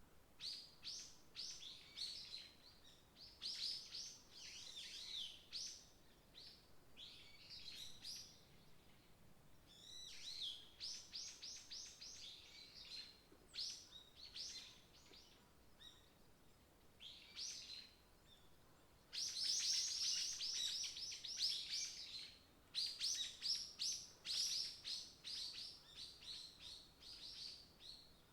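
Forest songbirds singing in quick, repeated high chirping phrases, one after another, with the busiest and loudest stretch about two-thirds of the way through.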